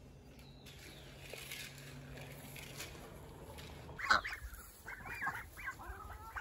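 Ducks and chickens calling: a run of short wavering squawks and quacks begins about four seconds in, after a few seconds of only a low steady hum.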